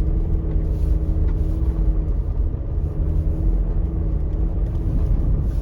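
Toyota RAV4 with all-wheel drive and snow tires driving through deep unplowed snow, its engine running steadily under load with a low rumble.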